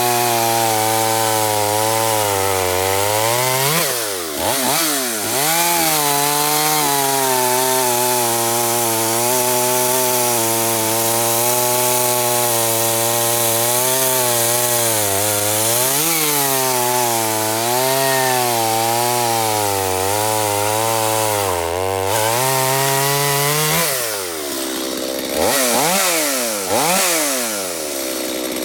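Stihl MS250 two-stroke chainsaw with a new 18-inch chain running at full throttle, cutting through a dry ash log; the engine note sags briefly a few times under load. In the last few seconds the throttle is eased off and blipped, the revs falling and rising again.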